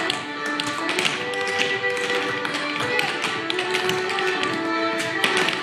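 Clogging dancers' taps striking the floor in a rapid, dense rhythm over music.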